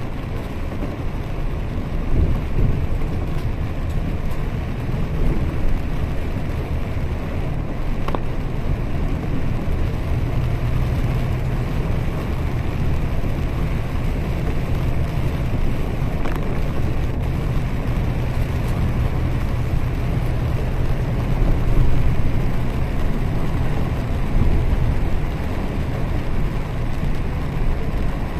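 Bus running along a wet road, heard from inside the cabin: a steady low rumble of engine and road noise with the hiss of tyres on wet tarmac.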